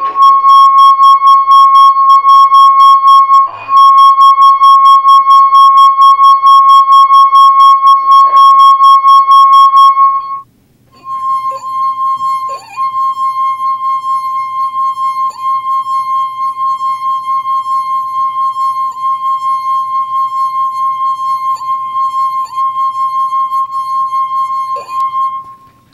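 A water-filled wine glass sung by a wet finger circling its rim: one steady high ringing tone, wavering slightly in loudness. About ten seconds in it stops briefly and starts again at the same pitch, a little softer, with a few small clicks. The tone is what sets the copper wire on the neighbouring glass moving by sympathetic vibration.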